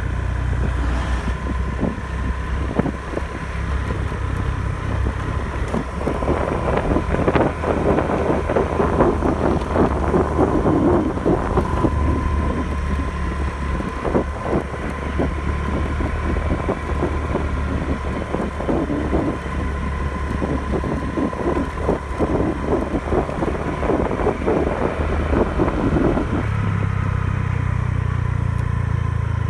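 Scooter engine running under way, heard from the bike itself, with wind rushing and crackling over the microphone and a steady high whine throughout. Near the end the wind noise drops away and the engine settles to a steadier, lower note.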